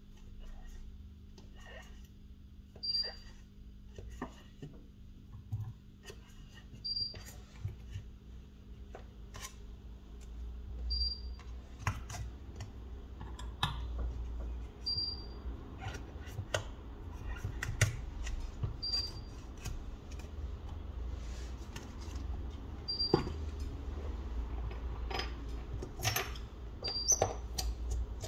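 Small sharp clicks and taps of repair tools working on a phone, busier in the second half, over a steady low hum. A short high beep repeats about every four seconds.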